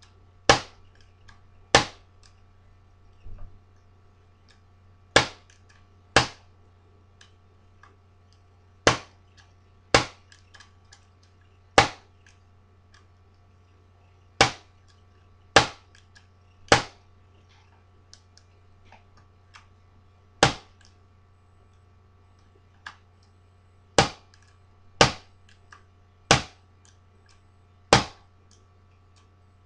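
A homemade WR5 bump key being struck in a locked deadbolt, giving sharp metallic taps about every one to two seconds at an uneven pace, about fifteen in all. Each tap is a try at bumping the pin tumblers so the cylinder can turn; the lock stays shut through these taps.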